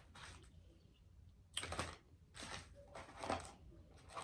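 A cardboard McDonald's nugget box being handled and slid on the table: several short, faint papery scrapes and rustles, starting about a second and a half in.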